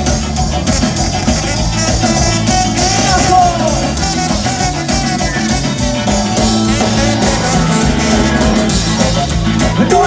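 Live ska-punk band playing at full volume: electric guitar, bass and drums with a lead line over them, and faint vocals.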